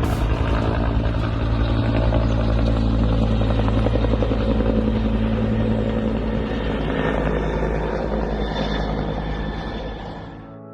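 A steady, loud mechanical drone with a fast low flutter, fading out near the end.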